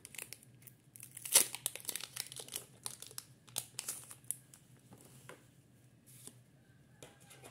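A foil Pokémon booster pack being torn open and its wrapper crinkled by hand: a run of sharp crackles, loudest about a second and a half in, thinning out over the last few seconds.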